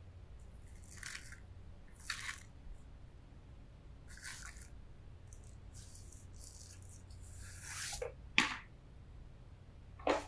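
Plastic wrap and cardboard packaging being handled as a wrapped stainless steel bottle is pulled out of its box: scattered rustles and scrapes, with a sharper crackle of plastic about eight seconds in and another near the end.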